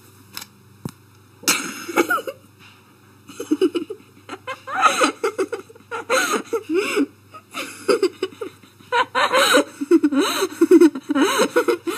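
A person laughing in repeated bursts, after a couple of short clicks in the first second.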